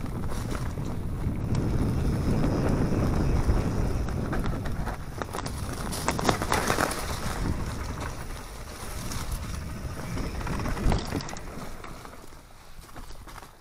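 Wind rushing over the microphone while a mountain bike rolls fast down a dirt, leaf-covered trail, with tyre noise and the bike's rattles and knocks over bumps.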